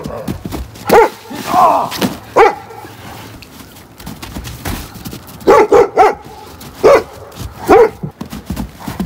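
A dog barking repeatedly in short single barks, with a quick run of three barks a little past halfway.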